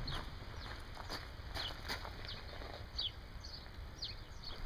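Birds calling: short, falling chirps, about two a second, over a low steady rumble.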